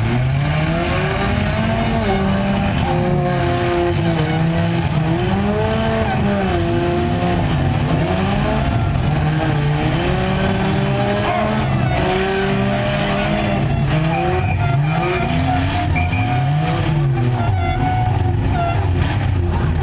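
Several demolition derby cars' engines revving up and falling back, overlapping one another. The revs swing continuously throughout.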